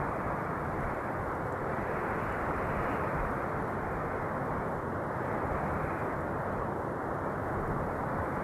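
Steady wind noise: a dull, even rushing with no high hiss, swelling and easing slightly every few seconds.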